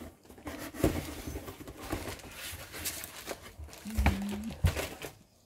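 A cardboard model-kit box being opened and its contents handled: scattered knocks, scrapes and rustling, with a brief low hum about four seconds in.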